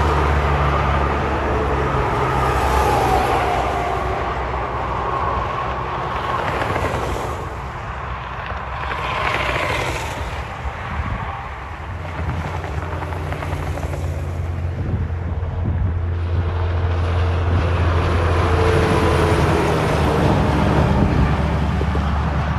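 Diesel semi-trucks passing on a highway: a deep engine drone under tyre and road rush. The pitch falls as one truck goes by near the start, and the rush peaks about ten seconds in as another vehicle passes. Another truck's engine builds near the end.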